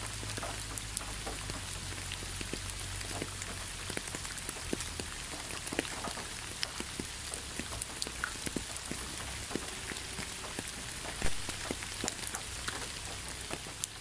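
Steady rain falling on wet fallen leaves and ground, a constant hiss dotted with many separate drops striking close by, one louder hit near the end.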